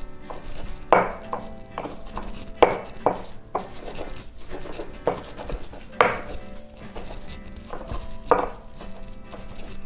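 Pestle (ulekan) pounding and grinding sambal in a cobek mortar, irregular knocks with rubbing in between, as the salt, sugar and stock powder are worked into the chilli paste.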